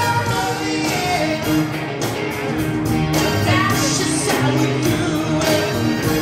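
Live rock band playing through a PA: electric guitar, keyboards and drums, with a male lead vocal.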